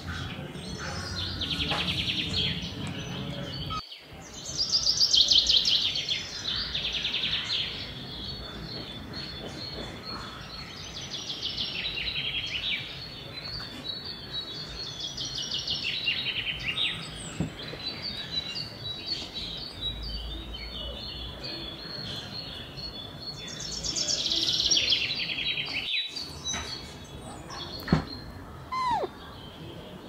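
Parrots chirping in repeated bursts of rapid, chattering calls, five or six bursts each a second or two long, the loudest about five seconds in.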